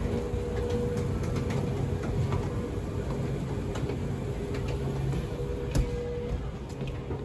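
Escalator running: a steady machine hum with a low drone and a fainter higher tone, with scattered light clicks. There is one sharp knock about six seconds in, as the rider steps off onto the landing.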